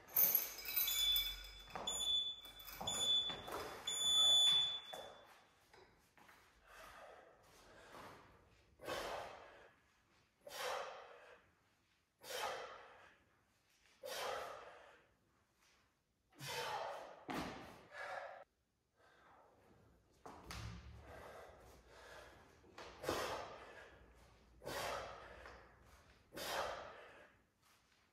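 Metal chain of a dip belt clinking and ringing several times as a kettlebell is hooked on. Then come hard, rhythmic breaths, one sharp breath every second or two, from a man straining through weighted pull-ups.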